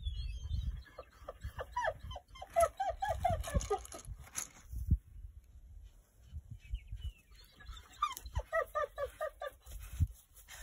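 Wind buffeting the microphone in gusts, with two runs of quick repeated chirping calls, about five or six a second, each falling a little in pitch, and a few thin high chirps at the start.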